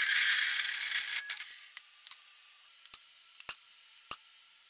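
Horizontal metal-cutting bandsaw hissing through a steel pipe, which stops about a second and a half in. Then a few sharp metal clinks and clanks as the cut pipe lengths are handled.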